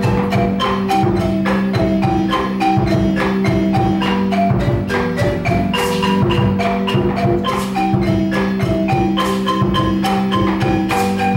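Guatemalan marimba played by several players with mallets: quick runs of short wooden notes over a steady low note, with a regular percussion beat underneath.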